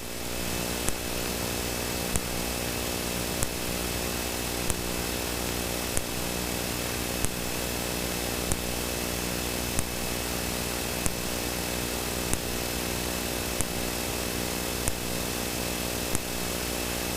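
Steady cockpit drone of a Citation V's twin turbofan engines and the airflow in flight: a hum made of several steady tones under an even hiss. A short sharp click repeats evenly about every 1.3 seconds.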